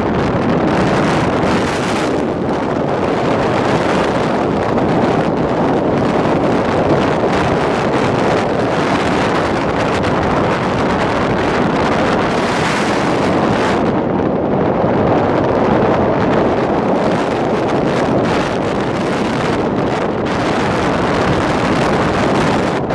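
Steady wind rushing over the microphone, mixed with the road and engine noise of a moving vehicle.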